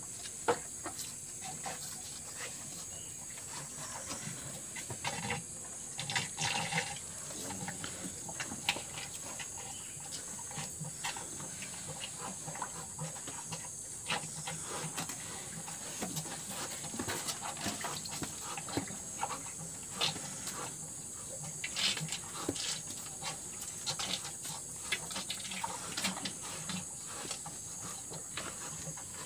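Cattle drinking from a plastic bucket: irregular wet slurping and sucking with small knocks against the bucket, over a steady high hiss.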